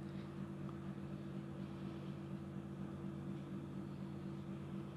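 A steady low mechanical hum with a faint hiss over it, unchanging throughout.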